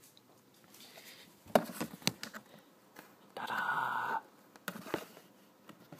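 Handling noises: a cluster of light clicks and knocks about a second and a half in and a few more near the end, from a phone and a clear container with a beetle caught inside being moved about.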